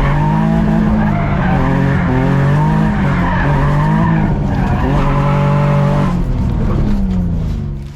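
Car engine revving hard, its pitch repeatedly rising and falling, with tire squeal as the car drifts. The sound is loud and cuts off just before the end.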